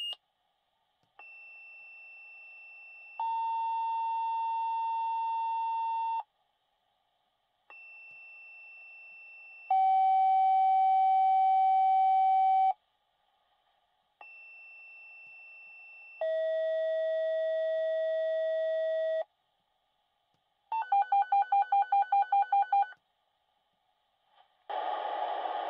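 Fire-dispatch pager tones heard over a radio scanner: three two-tone pages, each a short quieter high tone followed by a loud steady lower tone held about three seconds, each long tone lower in pitch than the one before. A rapid pulsing alert of about six beeps a second follows, then a dispatcher's voice comes in just before the end.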